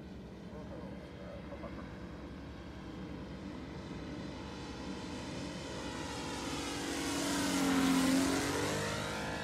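Saito FG-60R3 three-cylinder radial four-stroke petrol engine and propeller of a 1/5-scale RC Focke-Wulf 190 D9 in a flypast. The drone grows steadily louder as the model approaches and is loudest about eight seconds in as it passes close overhead. Then the pitch drops as it moves away.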